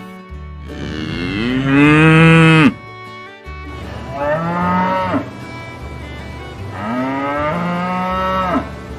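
Cow mooing sound effect: three long moos, each rising then falling in pitch, the first the loudest, over background music.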